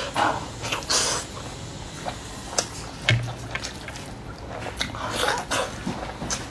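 Close-miked eating: biting and chewing tender sauced lamb leg meat pulled off the bone, with wet mouth clicks and smacks at irregular moments.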